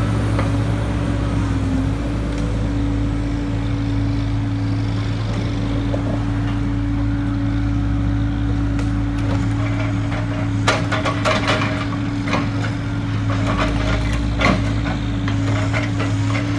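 Diesel engine of a knuckleboom log loader running steadily while it loads pine pulpwood logs onto a log trailer. A cluster of sharp wooden knocks from logs coming down on the load comes about two-thirds of the way through, and one more knock follows a few seconds later.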